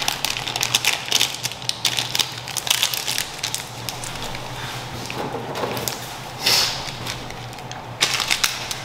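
Food-preparation handling noises: a run of quick light clicks and taps for about the first four seconds, then a few short rustling scrapes, over a steady low hum.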